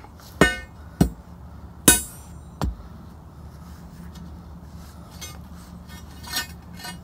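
Steel digging bar striking and prying at a stuck concrete septic tank lid: four sharp, ringing metallic clanks in the first three seconds, the third the loudest, then a fainter clank near the end.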